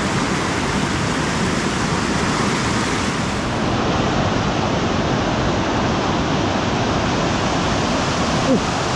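Steady, loud rushing of fast-flowing water, an unbroken roar with no distinct splashes.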